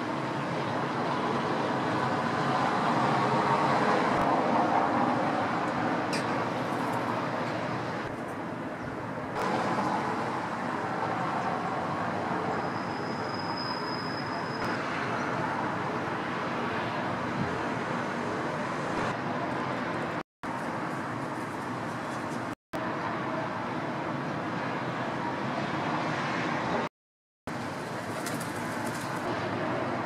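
City ambience at dawn: a steady hum of distant traffic with birds calling over it, and a brief thin high whistle about halfway through. The sound cuts out briefly three times in the second half.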